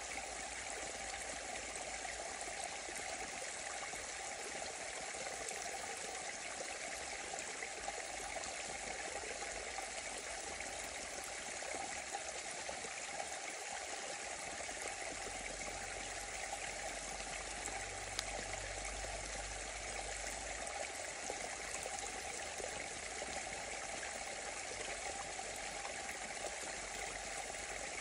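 Small muddy forest stream flowing down a gully: a steady rush and trickle of water.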